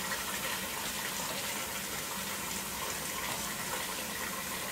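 Water running steadily from a wall-mounted pot-filler faucet into an enameled cast iron pot, filling it over pieces of beef.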